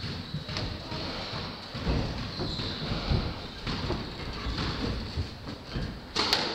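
Low, irregular thuds and rustling between squash rallies, then near the end a sharp crack as the squash ball is struck on the serve and hits the wall.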